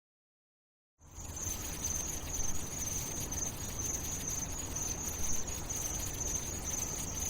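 Crickets chirring, a steady high trill over a low rumbling hiss, starting suddenly about a second in after silence.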